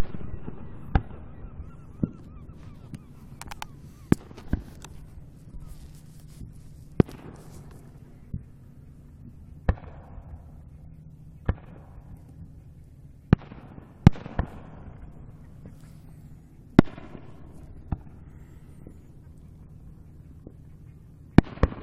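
Fireworks going off in scattered single bangs, about twenty sharp reports at irregular intervals. A few louder ones trail off in a short rumbling echo.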